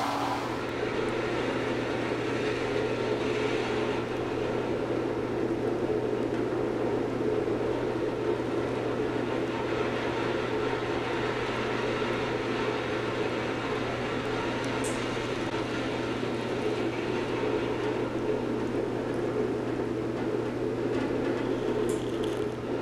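Steady mechanical hum with a whirring, rushing noise that holds level throughout.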